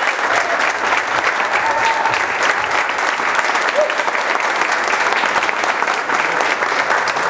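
Audience applauding steadily, with a few shouts and a whistle mixed in.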